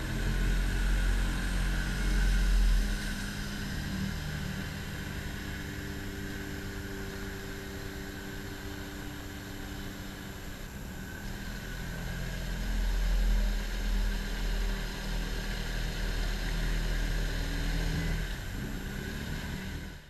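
Polaris Sportsman XP 550 ATV engine, fitted with a snorkel, running as the quad drives through river water. It swells twice, near the start and about two-thirds through, and cuts off at the end.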